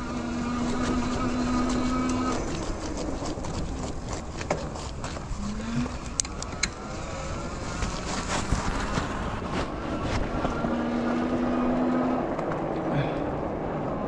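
Fat-tire e-bike under way in snow: the rear hub motor whines at a steady pitch for the first couple of seconds and again around eleven seconds in, over a constant hiss of fat tyres rolling through snow and air rushing past. A few sharp clicks come about six seconds in.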